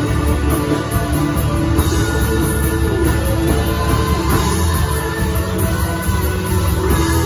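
A live worship band playing a steady song: guitars, keyboard and drums.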